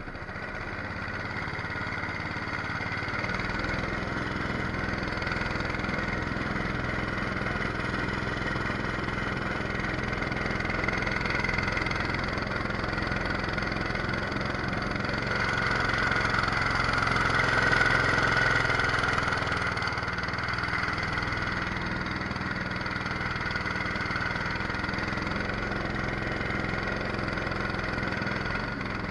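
A 212cc single-cylinder four-stroke engine runs steadily, driving a jet-drive pump that pushes a small aluminium boat. It gets louder over the first few seconds, holds, and swells again a little past halfway.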